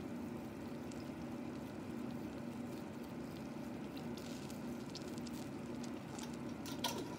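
Faint patter and crackle of crumbled dried oregano being sprinkled by hand onto shredded cheese on a frozen pizza, over a steady low hum.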